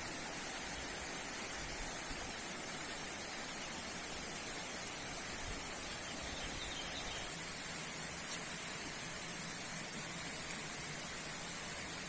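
Steady outdoor ambience: an even hiss with a constant high-pitched whine running through it, and a single faint tick about eight seconds in.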